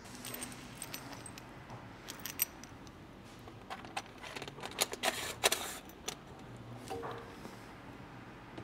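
Metal mounting hardware clinking and scraping as brackets and bolts are handled and slid along the tent's rail channel, with a run of sharp clinks about five seconds in.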